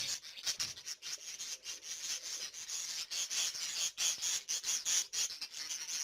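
A flock of budgerigars chattering continuously, a dense high-pitched stream of rapid short notes.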